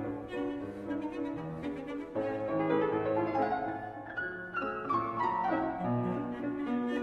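Instrumental background music in a classical style, with sustained bowed-string notes over piano. A descending melodic phrase comes about two-thirds of the way in.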